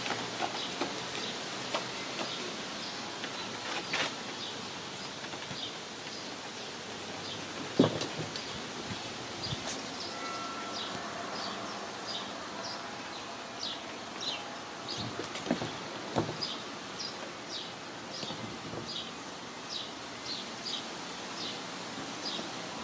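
Room ambience with a steady hiss and a run of short, high chirps repeating about twice a second. A few soft knocks and thumps come through it, the loudest about eight seconds in.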